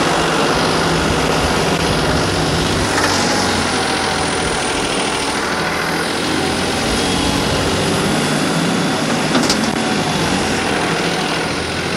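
Farmtrac 45 tractor's turbocharged three-cylinder diesel engine running steadily under load while pulling a 13-tine cultivator through the soil.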